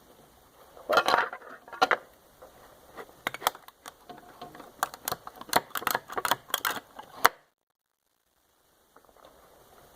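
Sharp clicks, knocks and clatter of hard plastic remote parts and hand tools being worked as the remote is taken apart, in an irregular run of quick strikes. The sound cuts off suddenly about seven seconds in, leaving a second or so of dead silence before faint room tone returns.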